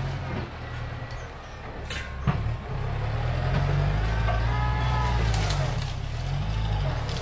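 Farm tractor's diesel engine running steadily under load as it pushes through brush, with a sharp crack about two seconds in and a brief high squeal near the middle.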